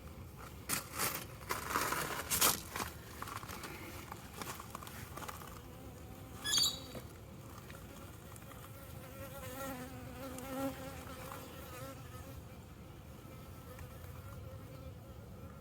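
Honey bees buzzing as they fly close around the microphone, their pitch wavering up and down. There are a few knocks in the first couple of seconds and a short high chirp partway through.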